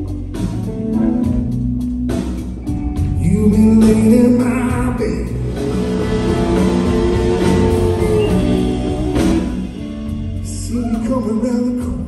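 Live blues/Americana band playing on electric guitars, bass and drums, heard from the audience seats, with long held, bending notes in the middle.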